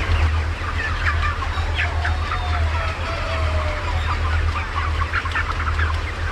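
A flock of chickens clucking and calling, many short overlapping calls with a longer drawn-out call about halfway through, over a steady low hum.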